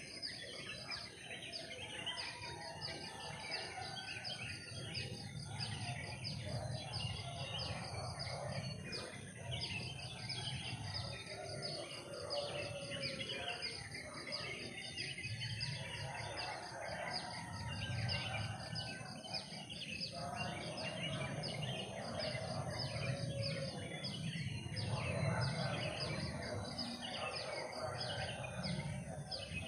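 Forest ambience: a dense chorus of rapid chirping calls over a steady high-pitched insect drone, with a low rumble underneath.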